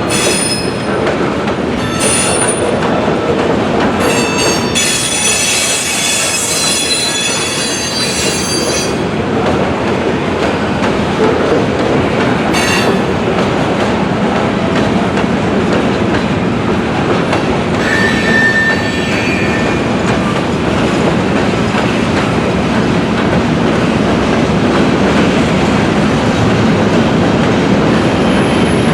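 Freight cars rolling through the yard, a steady loud rumble of wheels on rail with high-pitched wheel squeal that comes and goes, strongest about five to nine seconds in.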